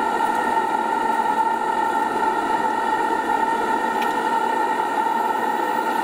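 Butane torch burner running steadily under a homemade copper steam boiler: a constant hiss with a few steady high whistling tones on top.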